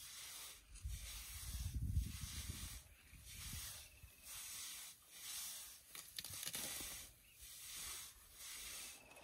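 A young African elephant browsing on a bush, with leaves and twigs rustling and tearing as her trunk strips them. Short hissing swishes come about once a second, and there is a low rumble about two seconds in.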